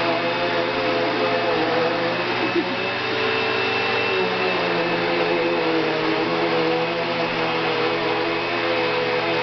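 Vacuum cleaner running steadily, a continuous whooshing motor noise with a steady hum; the hum shifts in pitch briefly around the middle.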